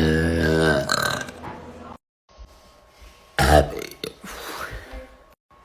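A woman's long, loud, low-pitched belch that ends about a second in. After a short gap, one brief burst sounds about three and a half seconds in.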